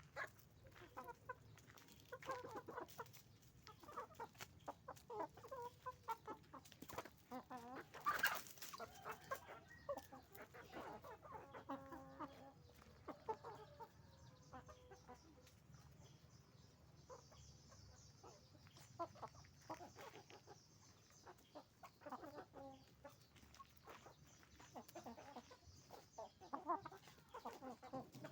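Flock of farm hens and roosters clucking and calling continuously in many overlapping short calls, with one loud sharp sound about eight seconds in.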